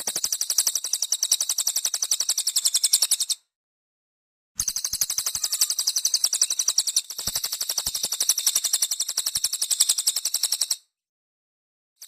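Cililin songbird singing a fast, high-pitched trill of chips in two long bouts. The first stops about three seconds in; the second starts about a second later and runs for about six seconds.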